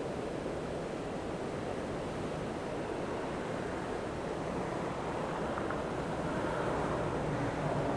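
Winooski River in flood pouring over the full width of the Essex No. 19 Dam spillway and churning below it: a steady rushing of falling water, a little louder near the end.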